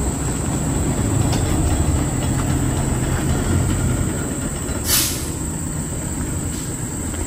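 Lorry engine running with a steady low rumble, and a short hiss of air about five seconds in.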